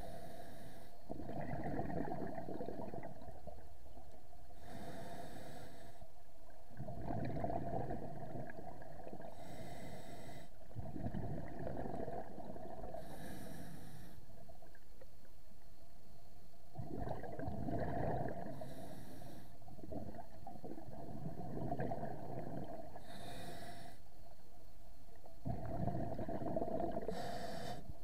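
A scuba diver breathing through a regulator, heard underwater: a short hiss of inhalation about every four to five seconds, each followed by a longer low burble of exhaled bubbles.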